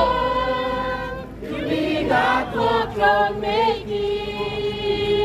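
Choir singing a hymn in long held notes, with one wavering note about halfway through.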